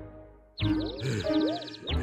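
Cartoon soundtrack music: a thump dies away, and about half a second in a run of quick, high falling chirps starts over swooping notes.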